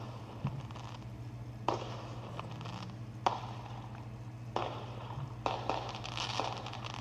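Fireworks going off: scattered sharp pops, some followed by a crackling hiss, with a faint steady hum underneath.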